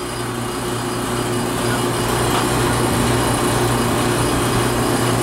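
Air-conditioning condensing unit running with almost no refrigerant: the compressor runs with a steady hum under a rattle from its check valve, which rattles because there is not enough refrigerant flow to hold it open.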